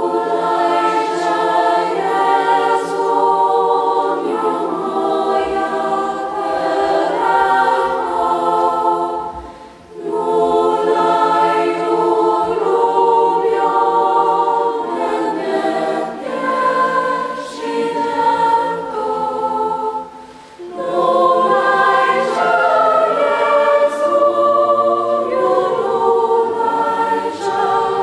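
A youth choir singing in a church. The singing comes in long phrases, with short breaks about ten and twenty seconds in.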